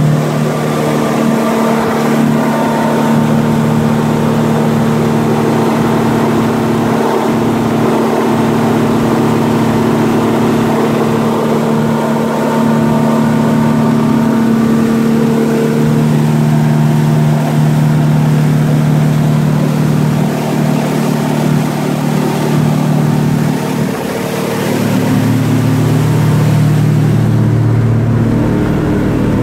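A Yamaha 300 hp outboard runs steadily at planing speed, mixed with the rush of water and wake along the hull of a Parker 2520. Near the end the sound turns duller, heard from inside the boat's cabin.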